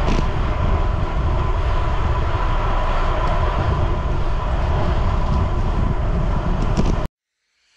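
Steady wind rush and road-tyre rumble from a road bike moving at about 40 km/h, heard on a bike-mounted camera's microphone; it cuts off suddenly near the end.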